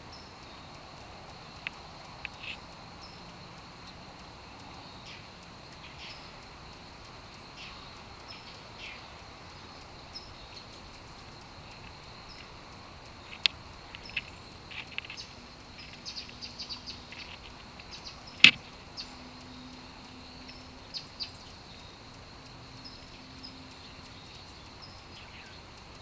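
Great horned owl tearing at a caught bird: scattered short clicks and ticks, thickest in the second half, with one sharp loud click about eighteen seconds in, over a steady high-pitched hum.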